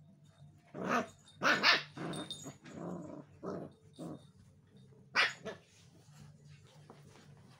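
Puppies play-fighting, giving a string of short yapping barks and growls over the first few seconds, then one more sharp bark about five seconds in.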